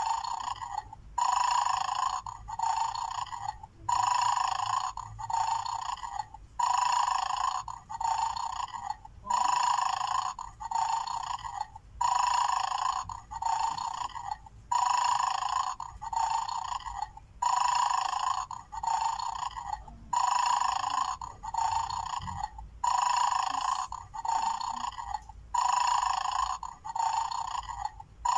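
Mad Dog bone-game toy playing its recorded snore through a small tinny speaker. Each snore has a long, louder in-breath and a shorter out-breath, repeating evenly about every three seconds. This is the toy's sleeping mode while it guards its bone.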